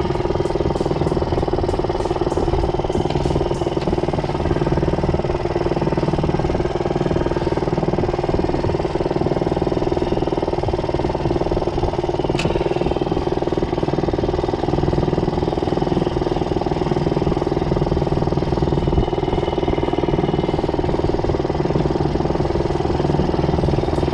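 Small 2-horsepower outboard motor running steadily. A run of fast ticks sounds in the first few seconds and a single sharp click about halfway.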